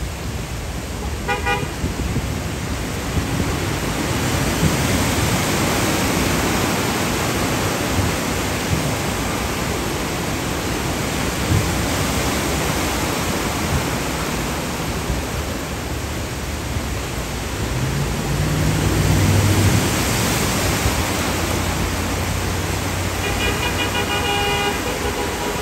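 Heavy rain and cars ploughing through a flooded street, their tyres pushing and spraying water, in a steady rushing wash. A car horn toots briefly about a second in and honks again for about two seconds near the end, and a vehicle's engine swells past a little after the middle.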